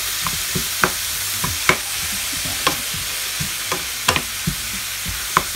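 Chopped leeks sizzling in a hot nonstick frying pan while a spatula stirs them, with irregular clicks and taps of the spatula against the pan over a steady frying hiss.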